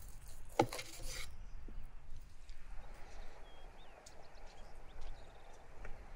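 Salad leaves and vegetables rustling and scraping as they are tossed and lifted with wooden spoons in a wooden bowl. A single sharp knock about half a second in, and faint bird chirps.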